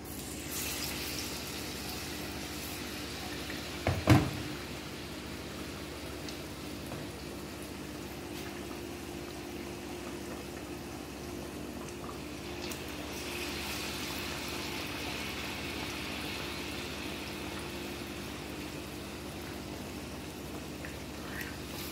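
Batter-coated banana pieces deep-frying in hot oil in a cast-iron kadai: a steady sizzle that starts just after the beginning and grows stronger about halfway through. A sharp double knock about four seconds in is the loudest sound, over a low steady hum.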